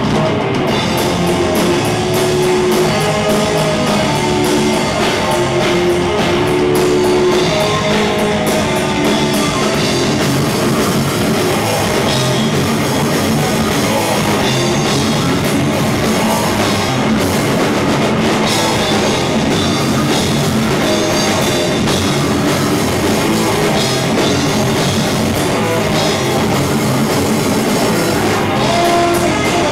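Heavy metal band playing live: distorted electric guitars, bass and a drum kit, loud and unbroken.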